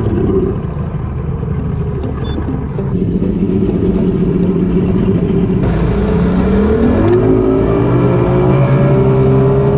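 Bass boat's outboard motor running, then throttled up about seven seconds in: its pitch rises and then holds steady at the higher speed.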